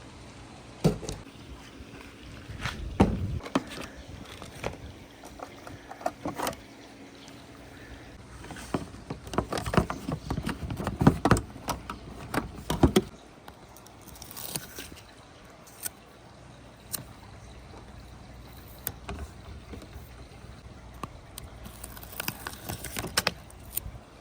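Marbles and wooden balls rolling down a wooden marble run, clacking and knocking against the track at irregular intervals, with a busy run of knocks in the middle, over a steady faint background noise.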